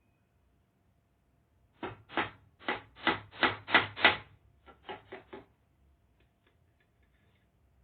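Hammer driving a nail into wood: a run of about eight blows, quickening and growing louder, then a short pause and four lighter taps.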